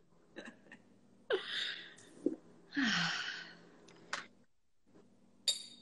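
Two soft, breathy sighs, each with a falling voice, a little over a second apart, with a few faint clicks around them.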